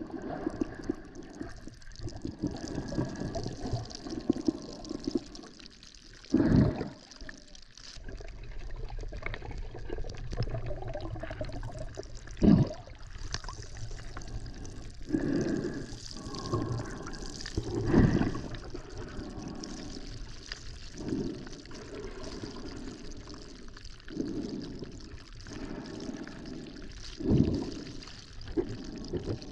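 Water heard underwater: a steady sloshing wash, with louder swirling surges every few seconds.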